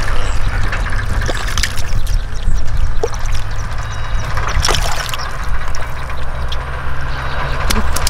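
Hands splashing and squelching through a shallow channel of muddy water while groping for catfish, with a few sharper splashes, the strongest just before the middle, over a steady low rumble.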